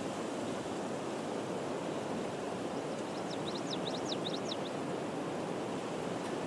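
Steady outdoor background noise, an even rushing hiss like wind, with a quick run of high chirps about three seconds in.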